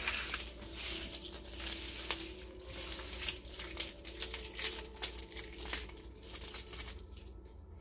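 Adhesive craft vinyl being peeled off its paper release liner and handled on a workbench: a stream of crinkles and small crackles, easing off near the end.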